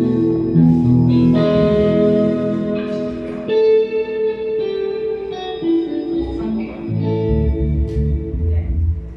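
Electric guitar, a Greco Super Sounds Stratocaster run through a Line 6 HX Stomp straight into the mixer, heard over the house PA speakers. It plays held chords and single notes that change every second or so, and lower notes come in about seven seconds in.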